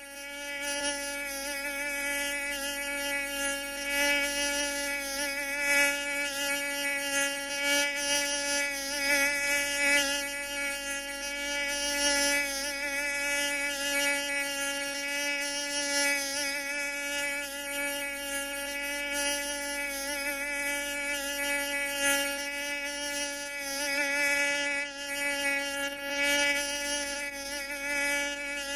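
Mosquito in flight: a continuous whining buzz from its wingbeats, wavering slightly in pitch and loudness.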